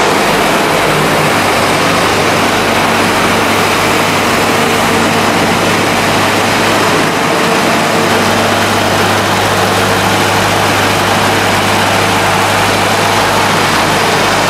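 Biomass gasification power plant machinery running: a loud, steady mechanical drone over a constant low hum.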